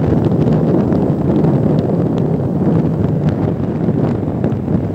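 Wind rushing over the microphone on a moving Hero HF motorcycle, with the bike's engine and road noise underneath.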